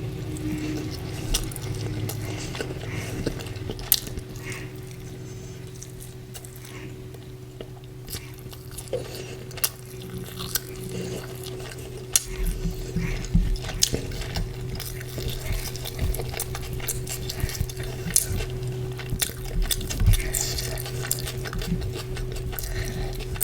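Close-miked eating of chicken curry with porota: wet chewing and smacking with frequent short clicks and clinks against the plate, over a steady low hum.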